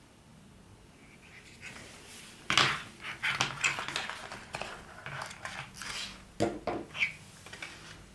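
Unboxing handling sounds: clicks, taps and rustles of plastic as the RODE Wireless GO microphone units are taken out of their packaging. They start about two and a half seconds in, with a few sharper knocks near the end.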